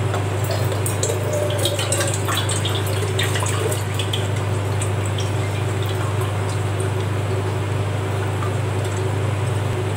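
Soaked red aval (beaten rice flakes) and their soaking water poured into a perforated stainless-steel strainer, the water splashing and draining through the holes. The patter thins out after about four seconds, over a steady low hum.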